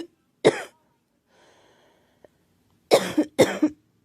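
A girl coughing: a single cough about half a second in, then, after a pause, two coughs in quick succession near the end.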